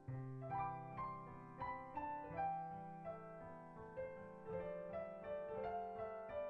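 Piano music: a slow melody of single struck notes over held low notes.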